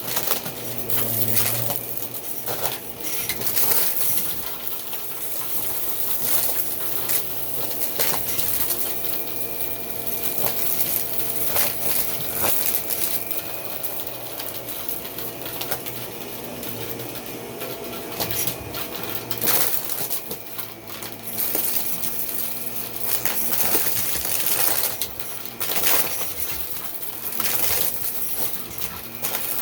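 Vacuum cleaner running with a steady motor hum and airflow hiss, with small hard pieces clicking and rattling as they are sucked up.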